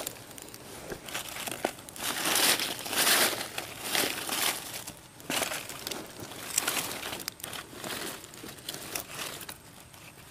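Dry leaf litter rustling and crinkling in irregular bursts, loudest about two to four seconds in.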